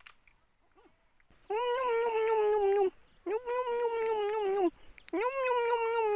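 An animal crying out three times in long, drawn-out calls of about a second and a half each, starting about a second and a half in.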